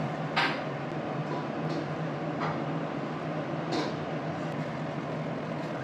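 A spatula and a plate clink against a stainless steel pan a few times while noodles and vegetables are stirred and tipped in; the sharpest clink is about half a second in. A steady rushing noise with a low hum runs underneath.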